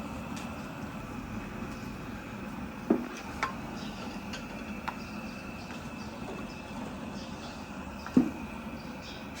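A few sharp knocks, the loudest about three seconds in and again near the end, one of them with a short metallic ring, over a steady background hum.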